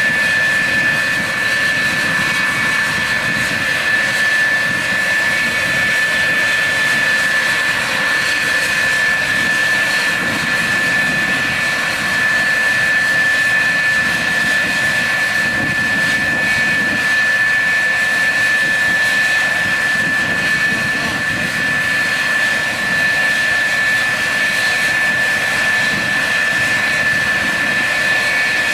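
The jet engines of an F-4F Phantom II idle steadily on the ramp: a constant high whine over a rushing roar, with no change in pitch.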